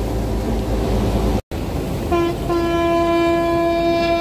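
Wind rumble on the microphone, then from about two seconds in a ship's horn sounds one long, steady blast.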